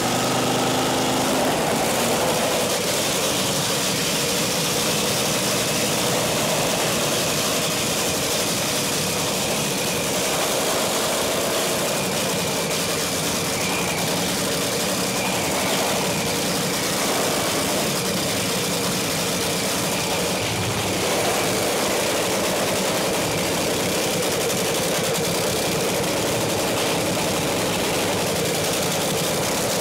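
An engine running steadily at idle, a dense even noise that does not rise or fall.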